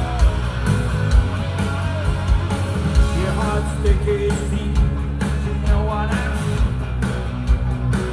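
Rock band playing live: drum beat, electric guitar and bass, with a male lead singer's vocals over them.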